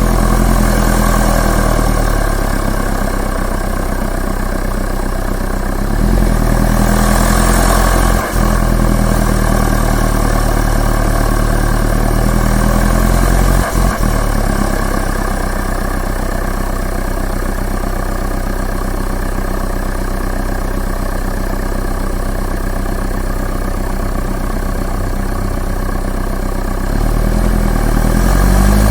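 Turbo diesel engine running steadily, its revs rising for a couple of seconds around a quarter of the way in and climbing again near the end, with two brief sudden drops in level in between.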